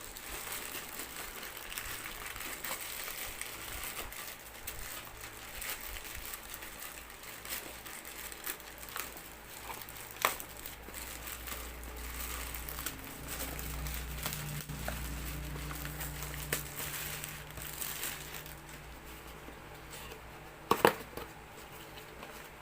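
Packaging being crinkled and pulled open by hand, a steady crackly rustle with scattered clicks, one sharp knock about ten seconds in and a louder double knock near the end.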